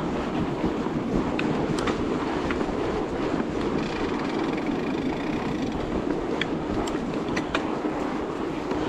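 Fat bike towing a roller trail groomer over packed snow: a steady rolling rumble from the tyres and rollers, with scattered sharp clicks.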